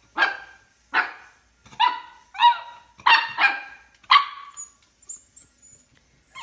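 Miniature schnauzer puppy barking at its own reflection in a mirror: about seven short, high-pitched yaps in quick succession over four seconds, then only faint small sounds near the end.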